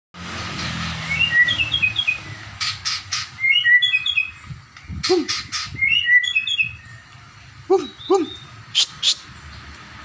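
Caged murai songbird singing in short phrases of quick high chirps, three in all, with sharp clicks between them and two lower swooping calls near the end.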